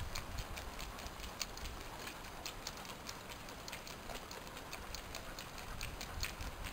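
Dogs trotting on pavement while pulling a sulky, their toenails making an irregular patter of light clicks, a few a second, over a faint low rumble.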